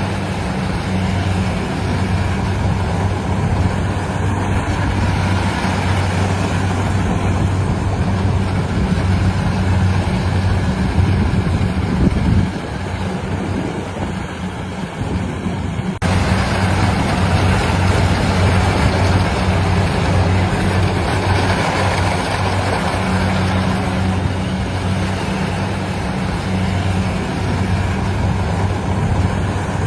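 Engine of a rice combine harvester running steadily, a constant hum with a dense noise above it. Just before halfway the hum weakens for a few seconds, then comes back abruptly.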